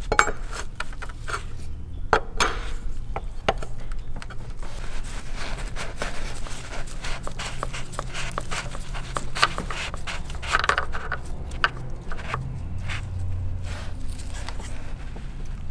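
Scattered metallic clicks and scrapes of a BMW M54 engine's VANOS solenoid being loosened with a 32 mm wrench and unscrewed by hand, with shop towels rustling beneath it.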